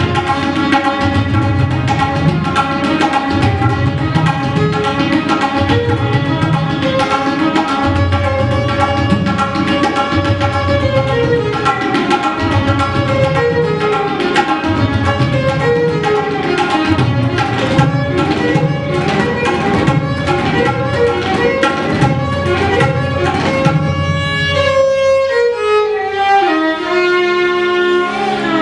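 Violin playing a raga melody with sliding notes, accompanied by tabla strokes in a repeating cycle with deep bass-drum booms. About 24 s in the deep tabla strokes stop and the violin carries on with a falling line.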